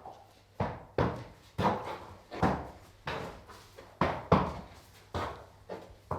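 Horse trotting: hooves strike hard ground in an uneven, repeating rhythm of about two woody knocks a second.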